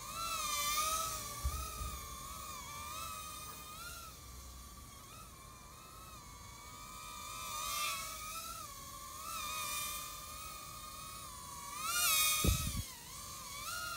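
Cheerson CX-10 nano quadcopter's four tiny coreless motors whining, the pitch wavering up and down as the throttle changes. The whine swells louder three times, about a second in, near the middle and near the end, as the drone comes close. There is a brief low thump near the end.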